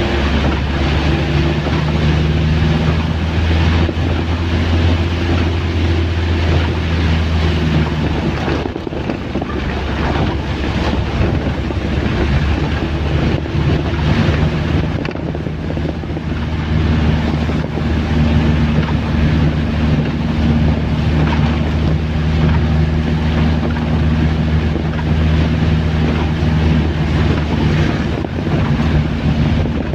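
Heavy rain pouring down as a loud, steady hiss, with a low steady engine-like hum underneath that fades for several seconds about a third of the way in and then comes back.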